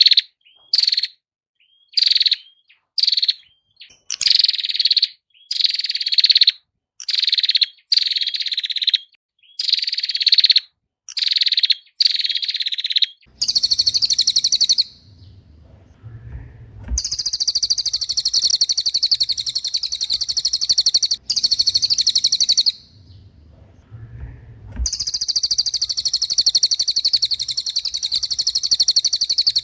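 Recorded songbird song: short, high calls repeated about once a second, changing about halfway through to long, continuous high trills lasting several seconds each, with brief gaps between them.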